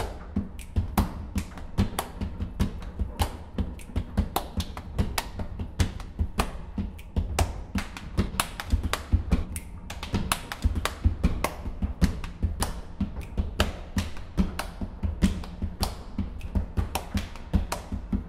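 Body percussion: a fast, even stream of sharp hand claps and slaps on the body, with low thuds under them.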